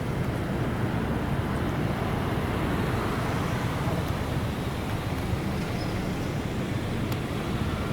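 Steady, low rumbling outdoor background noise with no distinct events.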